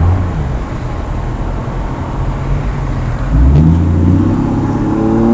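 Chevrolet Trailblazer's 4.2-litre inline-six with dual exhaust rumbling as the vehicle goes by. The engine note rises in pitch and gets much louder from about three seconds in.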